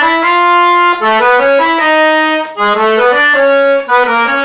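Piano accordion playing back a melodic passage from the right-hand keyboard, a run of held notes with many of them sounding in pairs, broken by a few short gaps.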